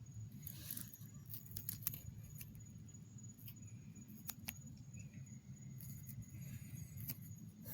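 Faint night ambience: a thin, steady, high insect trill over a low rumble, with scattered small ticks and a brief rustle about half a second in. A sharp knock comes right at the end.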